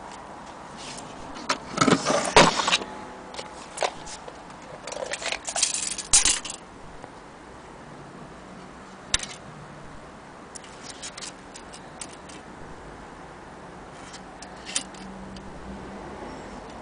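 Stanley steel tape measure being pulled out and handled against the clock, making metallic rattles and clicks in two bursts in the first half, then a few scattered clicks.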